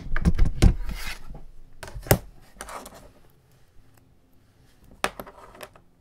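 A plastic ruler and a small metal mechanical pencil being handled and set down on a desk. Rubbing and clatter in the first second, then single sharp knocks about two seconds and five seconds in.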